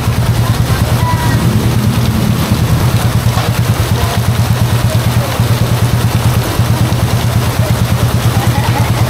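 A small engine idling close by with a rapid, even pulse, over the steady hiss of heavy rain.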